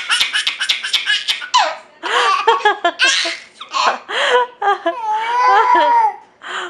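A baby laughing hard: a quick run of short belly-laugh bursts in the first second or so, then longer laughs that rise and fall in pitch, dying away near the end.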